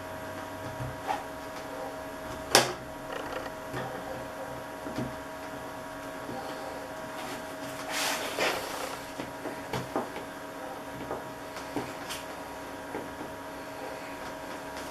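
Pliers and a small washer being forced onto a fitting in a PVC tarpaulin bag: scattered small clicks and knocks, with one sharp click about two and a half seconds in and the plastic sheet rustling around eight seconds in. The washer is a tight fit and hard to get on.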